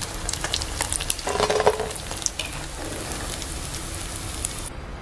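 Batter-coated paneer pieces sizzling and crackling in hot oil in a metal kadai, with a slotted metal spoon stirring and scraping among them as they are lifted out golden brown.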